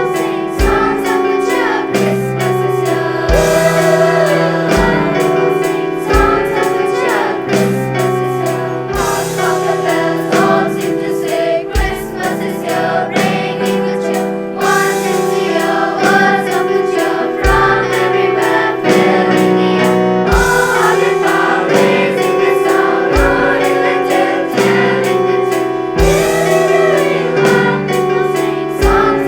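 High school choir singing a Christmas carol with instrumental accompaniment: held chords under moving voice parts, with occasional low thuds.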